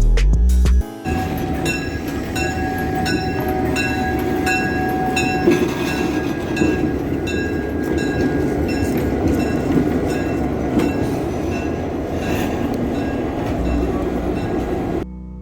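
A train running on rails: a steady rumble with a regular clicking, about one and a half clicks a second, as the wheels pass over the rail joints. A steady whine runs through the first few seconds.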